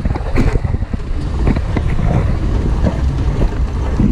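Off-road vehicle driving on a dirt trail: a steady low rumble with wind buffeting the microphone and scattered knocks and rattles.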